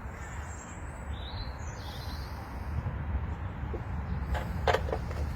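A steady low outdoor rumble with a few faint high bird chirps in the first half, then several sharp clicks or knocks near the end.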